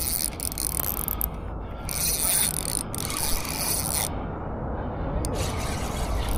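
Fishing reel being cranked in spurts, its gears whirring and clicking as line is wound in against a fish pulling on the bent rod. A low wind rumble runs underneath.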